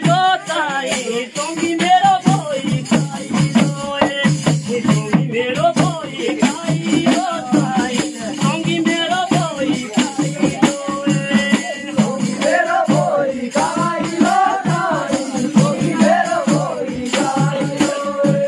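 Jaunsari nati folk song: a man's voice singing a wavering, repeated refrain over a steady, fast percussive beat of rattling clicks.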